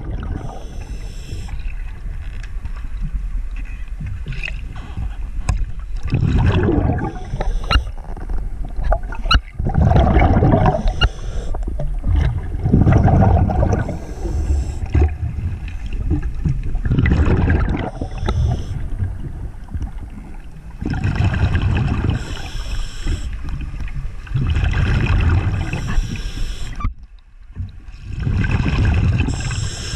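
Muffled underwater water noise picked up by a submerged camera, swelling into bursts of rushing and bubbling every three to four seconds, with scattered small clicks.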